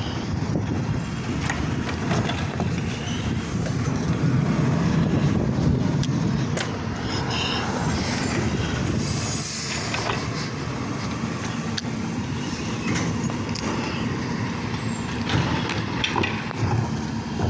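Automated side-loader garbage truck running steadily at low revs as it works along the curb, with scattered clunks from its lifting arm and the carts, and a burst of air hiss, typical of the air brakes, about nine seconds in.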